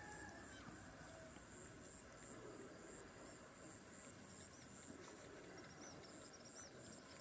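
Near silence: faint field ambience with insects trilling steadily in a high, evenly pulsed tone, and a run of faint high chirps in the last couple of seconds.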